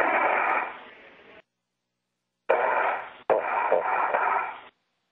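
Two bursts of hiss on the space-to-ground radio loop, an open channel with no voice. The first fades out after about a second and a half. After dead silence, the second starts sharply about two and a half seconds in, has a click partway through and cuts off about two seconds later.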